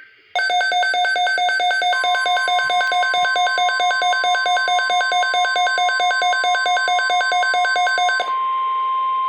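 Weather radio receiver's alert alarm beeping rapidly, about six beeps a second, for about eight seconds. Under it, from about two seconds in, the steady 1050 Hz NOAA Weather Radio warning alarm tone sounds; it carries on alone after the beeping stops. Together they signal an incoming broadcast alert, here a tornado watch.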